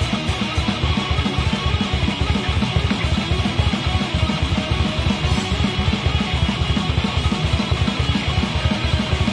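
Metal band playing live: electric guitar and bass guitar over a drum kit, with a fast, steady kick-drum beat and no vocals.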